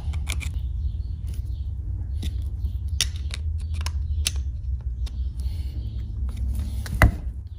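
Screwdriver tightening the breaker-point screws in a Ford 2N front-mount distributor: small scattered metal clicks and scrapes, with one sharper click about seven seconds in. A steady low hum runs underneath.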